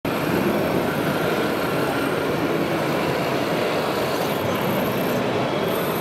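Steady mechanical din of radio-controlled 1/16-scale construction models at work: an excavator digging and loading a dump truck among other running machines.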